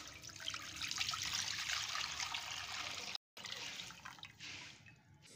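Milk pouring from a jug into a stainless steel pot, a steady splashing stream that cuts out for a moment about three seconds in and fades near the end.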